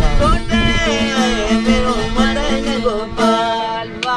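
Live folk singing: a voice carries a wavering, ornamented melody over a steady drone held by an accompanying instrument.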